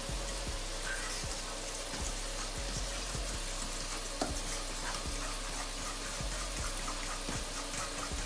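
Oil sizzling and crackling steadily in a frying pan, with a fork knocking against a bowl at irregular intervals as batter is whisked.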